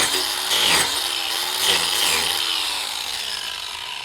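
DeWalt 18V XR cordless angle grinder with a wood carving disc cutting into a log, its motor pitch dipping under load and picking up again several times as the disc bites. The sound eases off near the end.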